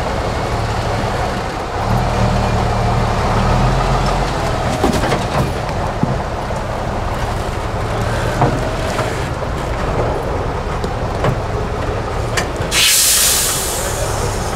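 Engine of an 8x8 trial truck running under load as it crawls over rocks, its note growing louder about two seconds in. A few sharp knocks, and a loud hiss lasting about a second near the end.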